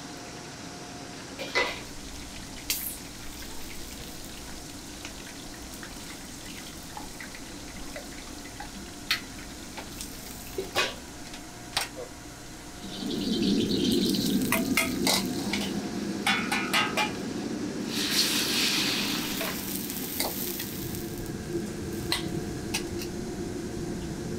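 Fish head deep-frying in oil in a wok: a steady sizzle with scattered sharp clinks of a metal ladle and strainer. About 13 seconds in, a much louder steady kitchen-range noise begins, with stirring, metal clanking against the wok and surges of sizzling.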